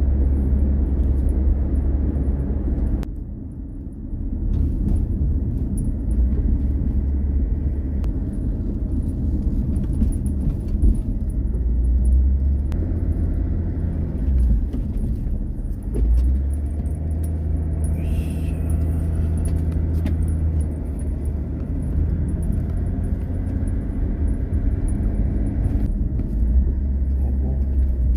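A car driving: a steady low road rumble that rises and falls a little in level, with a brief lull about three seconds in.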